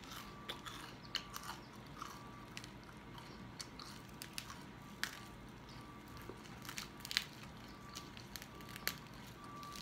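Crispy skin of a deep-fried pork hock (lechon kawali) crackling in sharp, irregular crunches as it is broken apart by hand and chewed.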